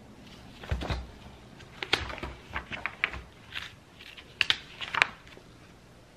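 Paper instruction booklets being handled and their pages turned: a string of short, irregular rustles and flaps, with a soft knock under a second in.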